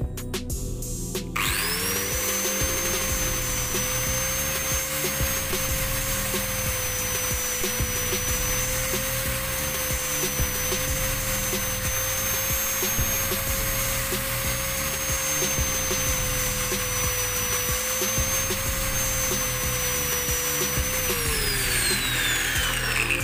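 A small high-speed electric power tool starts about a second in and runs steadily, a constant pitched hum with a hissing, grinding noise on top. Near the end it switches off and spins down, its pitch falling. It is smoothing the mating surface of a leaking carburetor.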